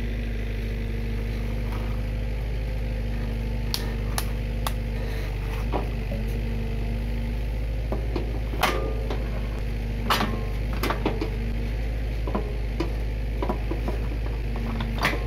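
Komatsu PC45 mini excavator's diesel engine running steadily under load, with a humming tone that comes and goes as the hydraulics work the boom and bucket. Sharp knocks and scrapes of the steel bucket against wet soil and stones come every few seconds.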